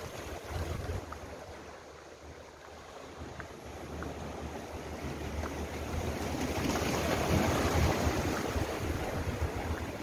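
Sea waves washing in over rocks and a concrete tetrapod breakwater, a surge swelling up to its loudest about seven seconds in, with a low rumble of wind on the microphone.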